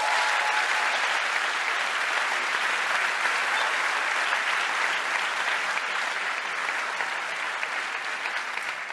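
Live audience applauding steadily, easing off slightly near the end.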